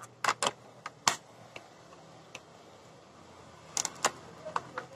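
Sharp clicks and taps of hard plastic as a KYT Galaxy helmet's visor is worked off its stiff, new ratchet mechanism: a few in the first second, then a quick cluster about four seconds in.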